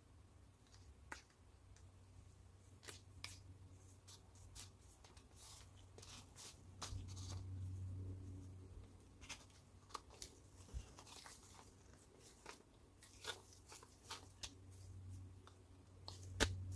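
Faint, irregular clicks and light knocks of plastic and metal drill parts handled in gloved hands as the Panasonic EY7441's gearbox, chuck and clutch collar are fitted together, with a sharper click near the end.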